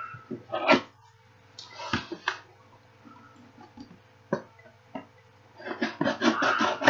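A taped cardboard box being forced open by hand, with scattered sharp tearing and scraping noises and a dense flurry of tearing and rustling near the end as it finally gives.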